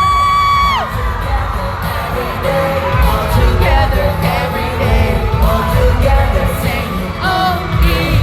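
Pop song performed live over a concert sound system: a heavy bass beat under sung vocals, with a long held high note that ends about a second in, then a moving melody line.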